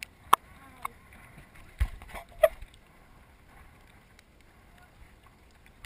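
Faint water sloshing and lapping around a camera in its waterproof housing at the sea surface, with a few sharp knocks and taps from the housing being handled, the loudest about a third of a second and two and a half seconds in.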